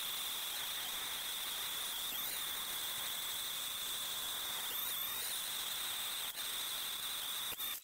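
A machine's steady high-pitched whine over a constant hiss, dipping briefly about every two and a half seconds, with a couple of faint clicks before it cuts off suddenly near the end.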